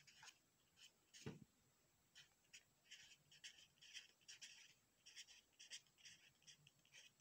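Pencil writing on paper: faint, quick scratching strokes as a word is written out, with a single soft knock just over a second in.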